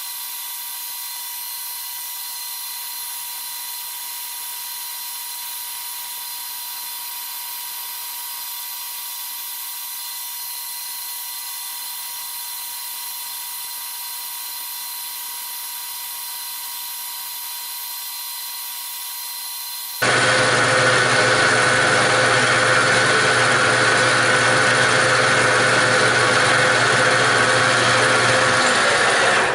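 Milling machine running an end mill that cuts a mild-steel block: a steady high whine over hiss. About two-thirds of the way through it suddenly becomes much louder and harsher, then stops abruptly at the end.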